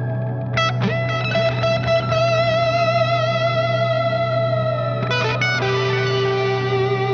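Electric guitar played through a GFI System Orca delay pedal: long sustained notes with a wavering pitch over a steady low drone, with new notes picked about half a second in and again around five seconds, after a note slides down.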